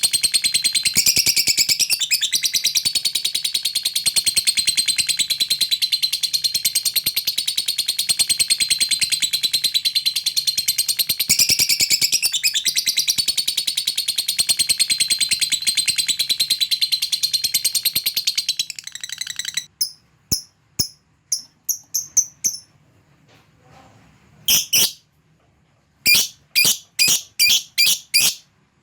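Lovebird in a long, fast, unbroken chattering trill (the 'ngekek panjang' sought by lovebird keepers) lasting about nineteen seconds, after which it stops and the bird gives a string of short, sharp single chirps.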